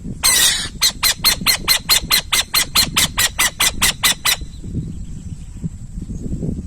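An owl calling: a short harsh hiss, then a fast, even series of about seventeen sharp, raspy notes, roughly five a second, stopping abruptly after about three and a half seconds.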